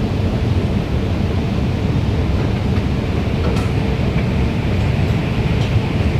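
Singapore MRT train running along the track, a steady low rumble with a few faint clicks near the end.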